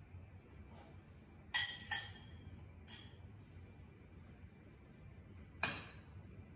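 Stainless cutlery and a ceramic plate clinking as a croissant is laid on the plate and the fork and knife are shifted: two sharp clinks close together about a second and a half in, a lighter tap a second later, and another clink near the end.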